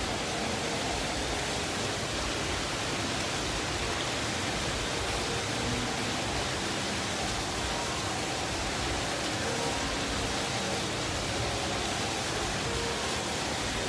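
Water of an indoor ornamental fountain splashing into its basin: a steady, even rush with no let-up.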